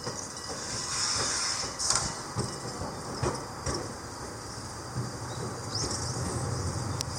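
Gakunan Railway train running along the track: a steady hiss with irregular clicks from the wheels, and a low hum that grows from about five seconds in.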